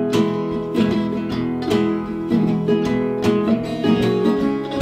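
Acoustic guitar strummed in a steady rhythm, an instrumental passage between the sung lines of a song.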